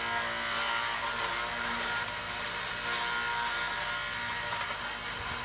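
Electric wood chipper running steadily with a motor whine, chipping woody garden stalks and branches fed into it.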